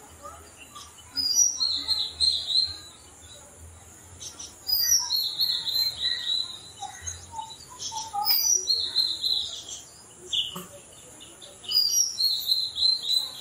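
A songbird singing the same short phrase four times, about every three and a half seconds: a high opening note, then a quick run of notes just below it.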